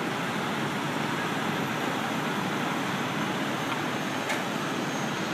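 Steady vehicle noise, an even rushing hum that holds at one level without changes.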